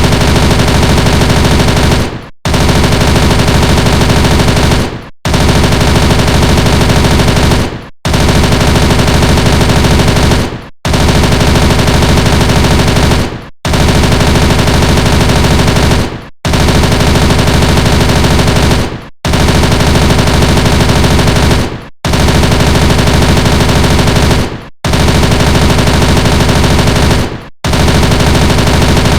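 MP5 submachine gun firing fully automatic, in one long burst after another. Each burst lasts about two and a half seconds, trails off, and is followed by a short break, over and over.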